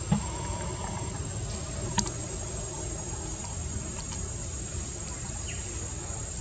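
Steady, high-pitched buzz of insects such as cicadas or crickets, over a constant low rumble, with two sharp clicks, one just after the start and one about two seconds in.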